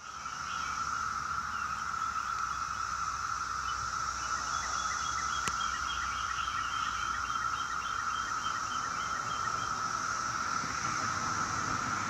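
Chorus of Brood X 17-year periodic cicadas: a steady, dense drone held at one high pitch, with a fainter, higher hiss above it. From about four seconds in until near the end, a faint series of quick chirps sounds over it.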